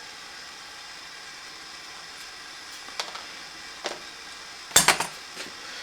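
A few light clicks of small metal tools and carburetor parts being handled on a workbench, then a short sharp clatter about five seconds in as something is set down, over a steady faint hiss.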